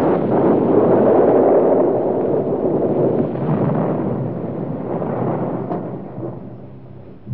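A loud rolling rumble with no clear pitch, swelling over the first two seconds and then slowly dying away, with a faint click near the end.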